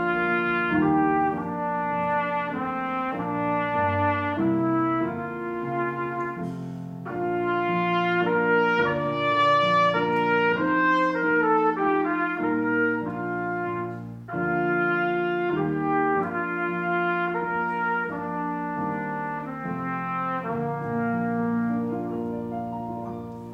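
Trumpet playing a melody of held notes over electric keyboard accompaniment, with a brief gap between phrases about fourteen seconds in and the music tapering off near the end.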